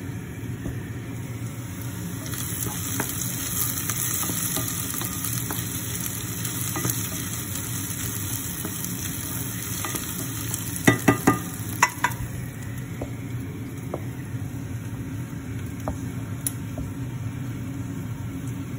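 Wooden spoon stirring and scraping food in a stainless steel pan over a steady sizzle of frying, with scattered light taps of the spoon on the pan. A quick cluster of sharp knocks against the pan comes about two-thirds of the way through.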